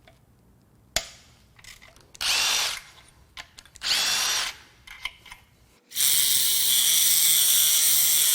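A power tool worked on the engine block: two short trigger bursts that spin up and down, then held on and running steadily near the end, with a sharp click about a second in.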